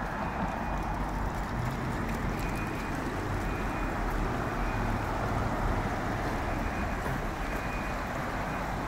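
Steady city street traffic noise: cars passing on the street below over a constant low rumble.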